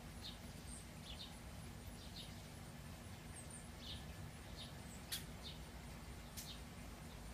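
Faint short bird chirps, roughly one a second at irregular spacing, with two sharp clicks a little after the middle over a low steady hum.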